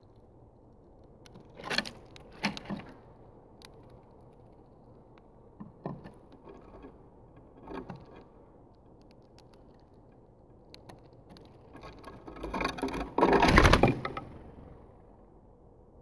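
Finches pecking and rummaging in sunflower seed and husks on a feeder tray right beside the microphone, making scattered sharp clicks and rustles. Near the end comes a much louder flurry of fluttering wingbeats and scattering seed lasting about two seconds, as a mourning dove lands on the tray.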